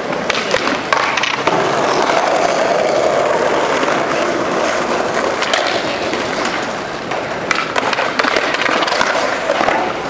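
Skateboard wheels rolling steadily over stone plaza paving, with several sharp clacks of the board.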